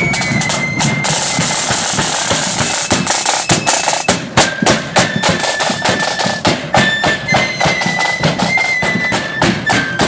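Marching flute band playing: flutes carry a tune in held high notes over rapid side-drum strokes and bass-drum beats, the drumming getting sharper and more prominent partway through.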